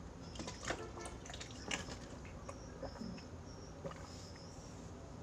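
Quiet room tone with a few faint, scattered clicks and some faint, short high-pitched chirps.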